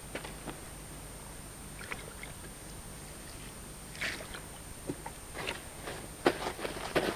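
Hands mixing and kneading fishing groundbait in a container: scattered soft crunching and rustling handfuls. They come more often and louder near the end. The mix is still dry and crumbly.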